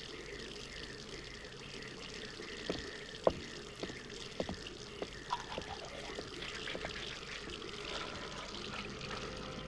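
Water running steadily from a bathroom sink tap, with light clicks and knocks of a toothbrush and toiletries being handled at the sink.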